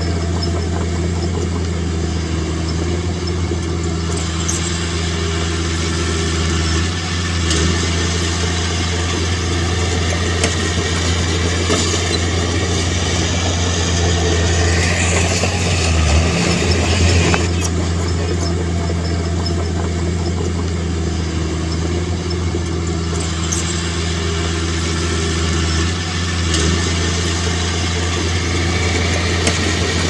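Heavy-equipment diesel engine running steadily, with brief shifts in engine note a few times and a faint high whine around the middle.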